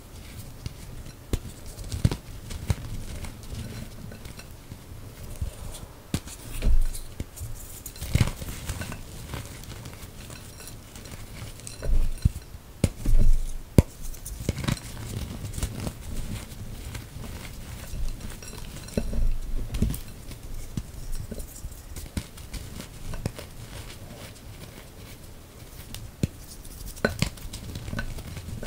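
Hands crushing and crumbling chunks of gym chalk over a bowl of loose powder: a steady run of irregular soft, crunchy crackles and powdery rubbing, with a few louder, dull thumps where lumps are squeezed and pressed down.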